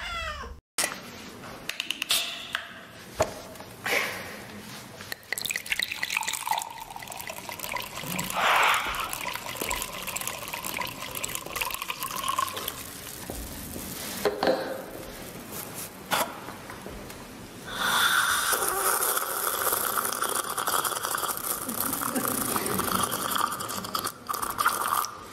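Water poured from a plastic bottle into a paper cup, trickling and splashing in uneven stretches, louder and steadier in the last third.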